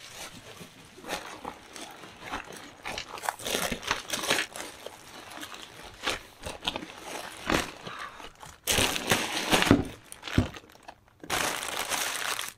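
Plastic wrapping crinkling and a nylon softbox carry bag rustling as they are handled, with a folded parabolic softbox being pulled out of the bag. The noise is irregular, with two louder stretches of rustling of about a second each near the end.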